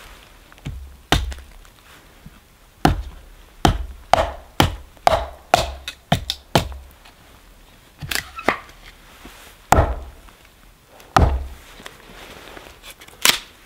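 Axe splitting and trimming a piece of dry cedar on a log: a series of sharp wooden chops and knocks, coming quickly for a few seconds, then a handful of single strikes spaced a second or more apart.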